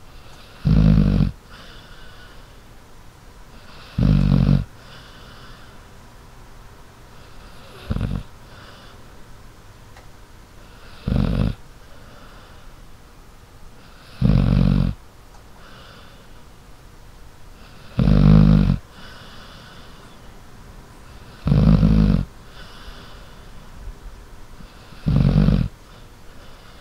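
Dog snoring in deep sleep: eight short snores at a steady pace, about one every three and a half seconds, with fainter breaths between them.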